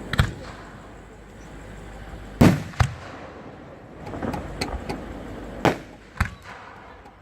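Fireworks going off: a string of sharp bangs at uneven intervals, two in quick succession about two and a half seconds in, with a run of smaller crackling pops in the middle.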